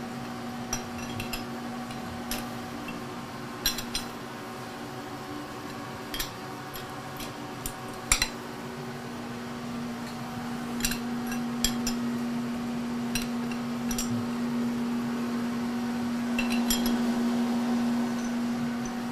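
Scattered metallic clinks and clanks of a wrench on the bolts of a milling machine's universal head as it is loosened, a dozen or so scattered knocks, over a steady low hum that grows slightly louder near the end.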